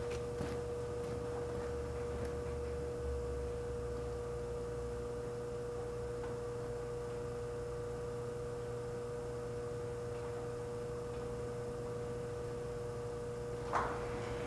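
Compressor of an antique Frigidaire 5400426 refrigerator running on a test refrigerant charge: a steady hum with a steady high, pure-sounding whine over it. A short knock about a second before the end.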